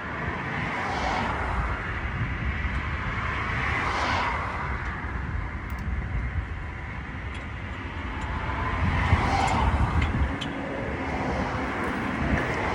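Road traffic passing: several cars go by one after another, each a swell of tyre and engine noise that rises and fades over a steady low rumble.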